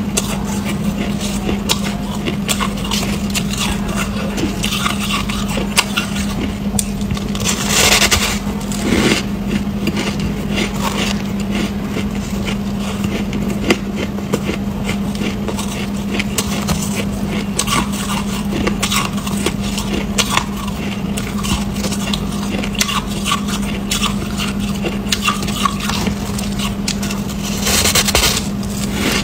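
Chunk of packed white frost ice being bitten and chewed close to the mouth: a continuous crackly crunching, with louder bites about 8 seconds in and near the end. A steady low hum runs underneath.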